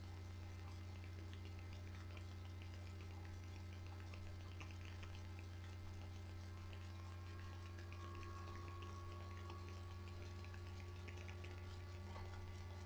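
Steady low hum, with faint scattered clicks.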